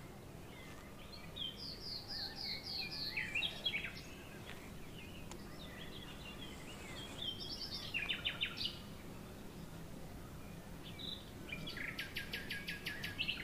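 Birds chirping in the background: runs of short, high, quickly repeated calls in three bouts, about a second in, around eight seconds in, and near the end.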